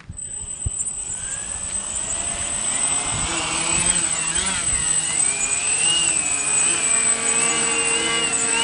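Electric quadcopter's motors and propellers spinning up and lifting off, a whine that rises in pitch over the first few seconds, then wavers up and down as it hovers and climbs, growing louder throughout.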